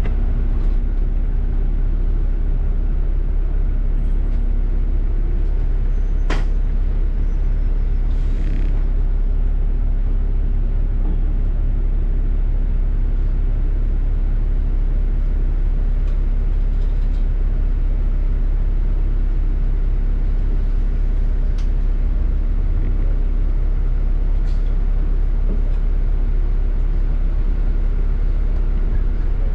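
A double-decker bus in motion, heard from inside the cabin: a steady low engine and road rumble with a faint constant hum. A sharp click comes about six seconds in, and a short hiss of air a couple of seconds later.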